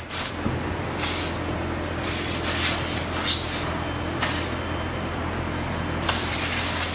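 EVA shoe-moulding machine running with a steady low hum, under repeated bursts of air hissing that start and stop abruptly, each lasting a second or two, as the open mould is worked.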